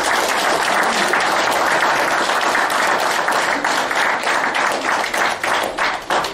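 A roomful of wedding guests applauding, a dense steady clapping that thins out into separate claps near the end.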